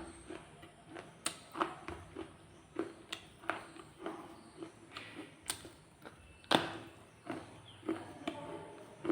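Red shale being bitten and chewed, a steady run of sharp crunches about two to three a second, the loudest about six and a half seconds in.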